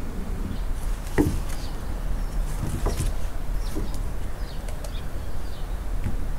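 Toy poodle puppy playing with a cloth toy on a wooden deck: a few light knocks and taps, about a second in and again around three seconds in, over a steady low rumble.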